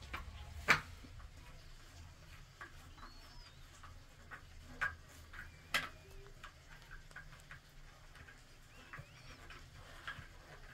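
Scattered light clicks and taps of a hand screwdriver and fingers working a plastic wall light fitting as its screws are driven into the tiled wall. A few sharper clicks stand out, about a second in, near the middle and near the end. Faint high chirps sound now and then.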